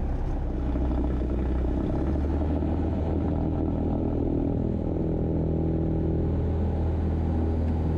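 Cessna 172's piston engine and propeller run up for the takeoff roll: a steady engine drone whose note rises a step about two seconds in as power comes up, then holds.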